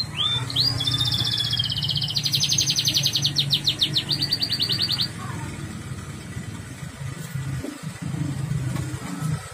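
Yellow domestic canary singing a fast trilling song of rapid repeated notes, which stops about halfway through, over a steady low hum.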